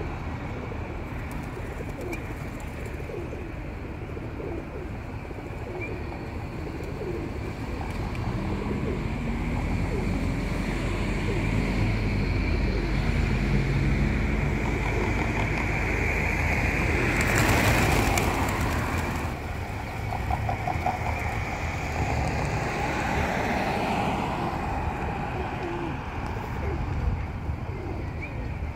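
A flock of feral pigeons cooing as they feed, over a steady low rumble of road traffic. A louder rushing noise rises and falls just past the middle.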